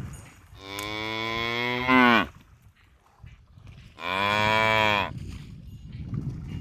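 Bovine lowing: two long moos, the first falling in pitch as it ends, the second shorter.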